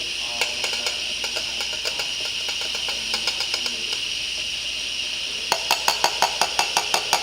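Pre-millennium La Pavoni lever espresso machine hissing steadily as it holds steam pressure. Light metallic clicks and taps sound over the hiss, turning about five seconds in into a quick, even run of about six clicks a second.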